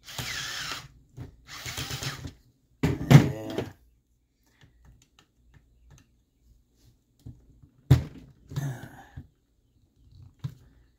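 Two short bursts of a power screwdriver backing out a tight screw on an RC truck chassis, then quieter small clicks and handling of parts, with one sharp click about eight seconds in.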